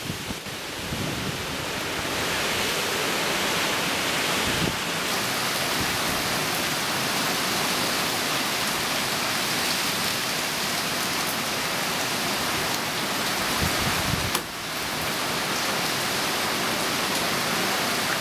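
Heavy hurricane rain pouring onto dense tree foliage in gusting wind: a steady, dense hiss, with a brief lull about three-quarters of the way through.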